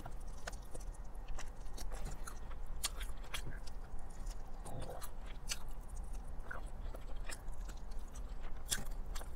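Fried chicken being bitten and chewed, the crispy breading giving irregular crunching clicks.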